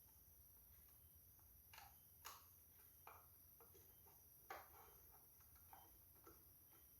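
Faint, scattered light clicks and taps from hands handling small parts and wires, about six over several seconds, against near silence.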